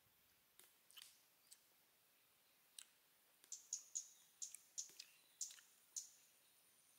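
Soft, sharp clicks and smacks of someone eating braised chicken close to the microphone: lips and mouth working on meat pulled off the bone by hand. A few single clicks at first, then a quick run of them in the second half.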